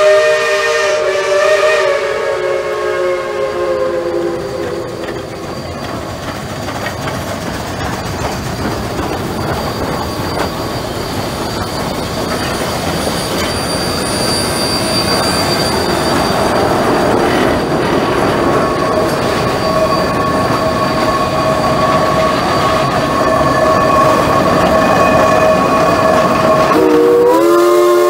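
A steam locomotive's whistle sounds a chord of several notes that sags and dies away in the first few seconds. Then a Shay geared steam locomotive works past close by with rapid exhaust chuffs and hissing steam, a steady tone running underneath. The chord whistle starts again near the end.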